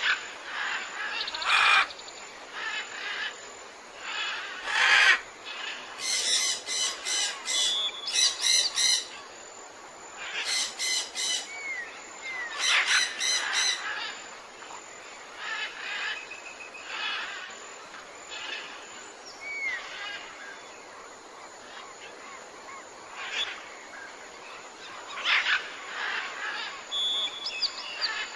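Birds calling and chirping in short, repeated phrases, some notes sweeping quickly up or down, over a steady background hiss of outdoor ambience.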